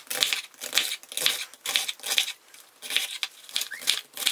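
Large kitchen knife slicing through half a head of red cabbage on a plastic cutting board: a quick run of crisp crunching cuts, about three a second.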